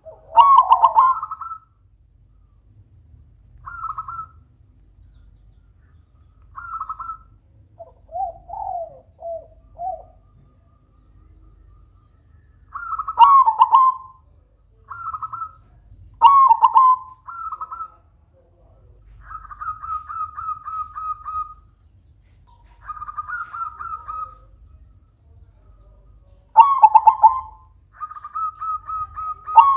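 Silver zebra dove (perkutut) cooing loudly in repeated phrases of quick staccato notes, with pauses of a second or two between phrases; several phrases open with a sharp, very loud note.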